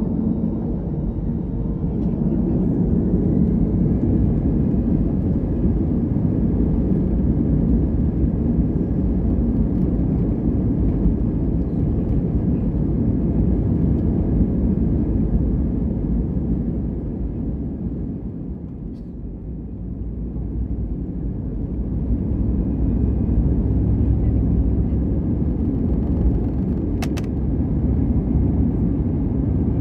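Airbus A320 cabin noise with the jet engines running: a steady, loud, deep rumble that dips about two-thirds of the way through and then builds back up. A short sharp click comes near the end.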